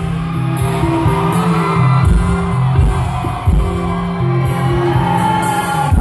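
Live rock band playing an instrumental passage with guitars, bass and drums, heard loud from within the audience, with whoops from the crowd.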